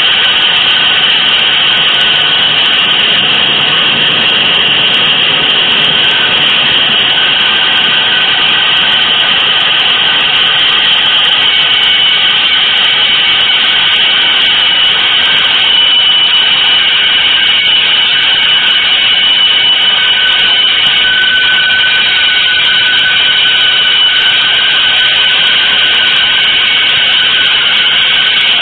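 Loud, dense, unbroken wash of noise with several held high tones layered through it, a new tone entering about halfway and another later on: an experimental electronic noise composition.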